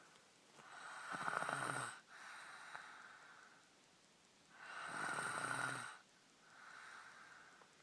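A sleeper snoring in two slow breaths. Each is a louder snore with a low buzzing pitch, followed by a softer, longer breath.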